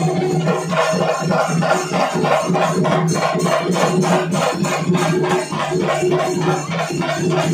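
Chenda melam: a troupe of chenda drums played together in a fast, dense rhythm, over a steady low tone.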